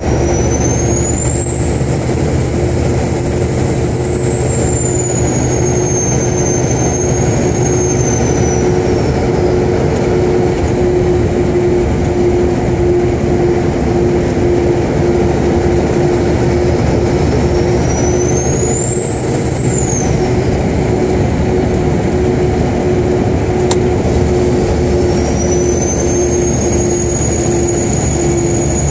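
2001 Kenworth's 575 hp single-turbo Caterpillar diesel running with a steady drone, its turbocharger whistling high above it. The whistle rises and falls as the turbo spools up and down, twice, and comes back as a steady whistle near the end.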